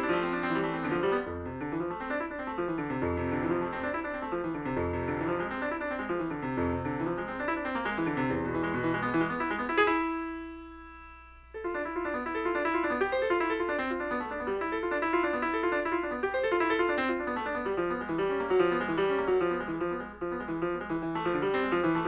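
Piano music with busy runs of notes over a repeating falling bass figure; about ten seconds in, a single chord is held and dies away before the rapid playing resumes.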